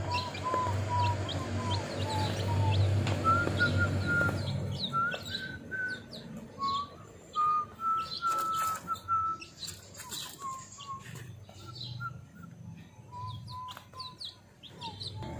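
Week-old chicks peeping in a steady string of short notes while they peck at feed, with a low rumble during the first few seconds.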